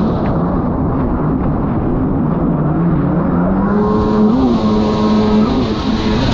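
Racing snowmobile engines running at high revs on the water, the pitch wavering with the throttle and climbing about two to three seconds in before holding high.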